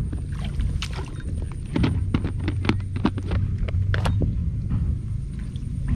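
Scattered wet slaps and splashes in shallow, muddy water, over a steady low rumble.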